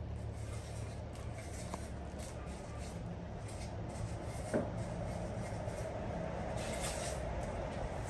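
A steady low rumble throughout, with a single brief knock about four and a half seconds in as a plate is set down on a wooden table.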